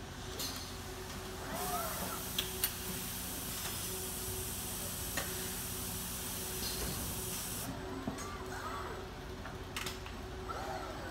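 Compressed air hissing steadily for about six seconds, starting a second or two in, from the pneumatics of an industrial robot cell. Several sharp clicks and a steady machine hum run underneath.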